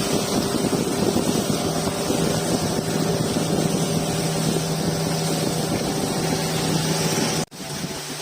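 A motorboat engine running steadily under way, with rushing water and wind noise. It cuts off abruptly near the end to a quieter steady engine hum.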